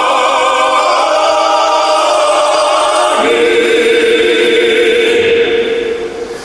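Male vocal quartet singing long held notes in close harmony with a slight vibrato; the chord shifts to a new one about halfway through.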